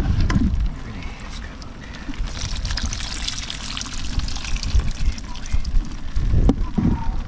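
Water pouring and trickling, strongest from about two seconds in until about six seconds in, with a single sharp click near the end.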